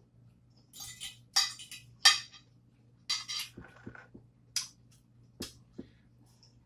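Eating a fresh vegetable salad with a fork: about half a dozen short, crisp crunches and scrapes with clinks of utensil on dish. The loudest comes about two seconds in.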